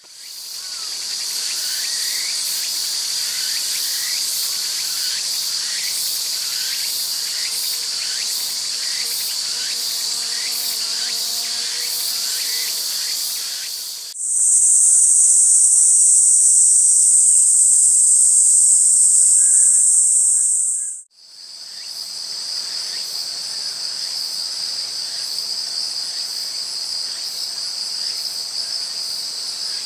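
Steady high-pitched chorus of summer insects. For the first half, faint short rising chirps repeat about once a second. About halfway through, a louder, higher buzz comes in suddenly, lasts several seconds, and cuts off just as suddenly.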